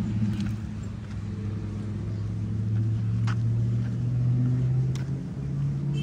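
A low, steady engine hum with a few overtones, rising slightly in pitch then shifting near the end, with two short sharp clicks in the middle.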